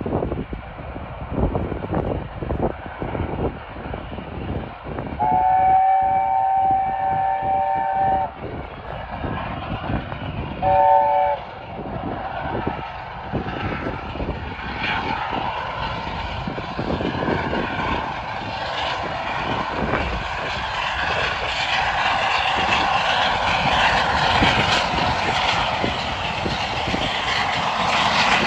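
LNER A4 Pacific 60009 Union of South Africa sounding its chime whistle, several notes at once: one long blast about five seconds in and a short blast near eleven seconds, over wind rumbling on the microphone. The locomotive and its train then grow steadily louder as they approach and run past.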